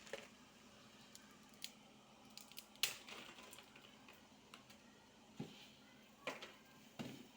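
A few faint, scattered clicks and light knocks from handling things while cooking, the sharpest about three seconds in, over a faint hiss.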